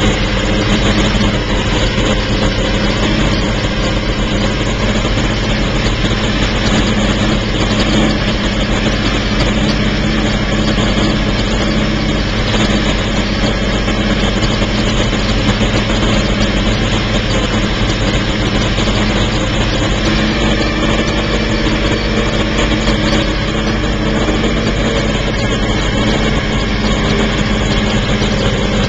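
Porsche 917's air-cooled flat-twelve racing engine idling steadily.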